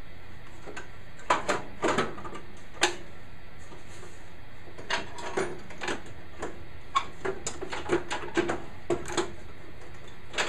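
Metal tools and parts clinking and knocking irregularly, in scattered clusters of sharp light knocks, as a replacement starter is worked into place on an old Sears garden tractor.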